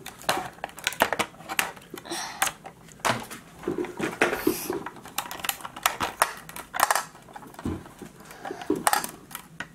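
Irregular clicks, taps and knocks of a plastic toy kitchen playset being handled as its packaging tie-downs are removed.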